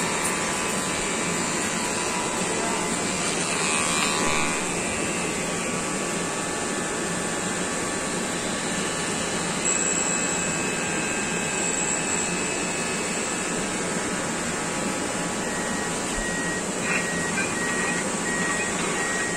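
Electric hair clippers buzzing steadily as they cut a small child's hair.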